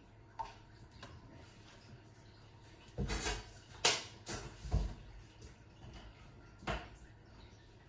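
Kitchen handling sounds: a cluster of knocks and bumps about three to five seconds in and one more near the end, over a low steady hum.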